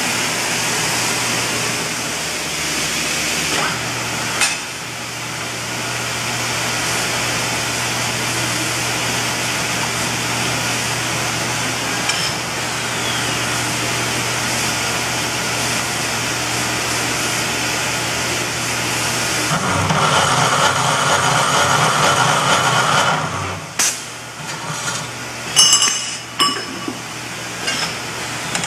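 Scotchman CPO 250HT automatic cold saw running with a steady motor hum. About twenty seconds in, a louder, rapidly pulsing stretch lasts about four seconds. Sharp metallic clinks and rings follow near the end.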